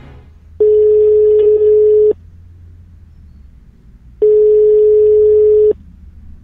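Telephone ringback tone, the sound a caller hears while the line rings: two long tones at one steady pitch, each about a second and a half, with a gap of about two seconds, over a faint low hum.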